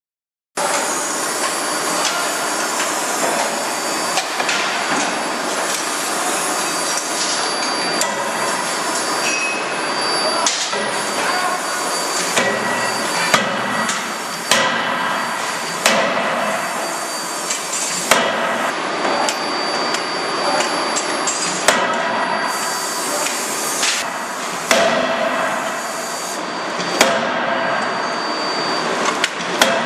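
A 31.5 kJ CNC forging hammer striking hot-forged connecting rods: sharp, heavy blows that begin about a third of the way in and come every two or three seconds, over steady loud machinery noise.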